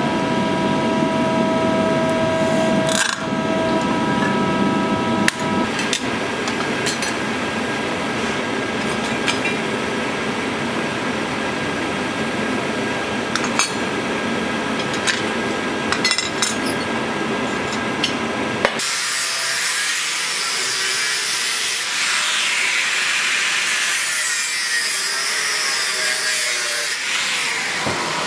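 Steel-forging workshop sounds: a forging machine's motor hums with steady tones while a red-hot plate is dished under a ball die, with two sharp metal knocks. Then scattered clicks of steel on steel, and from about two-thirds in, a steady rasping of steel being worked with a hand tool.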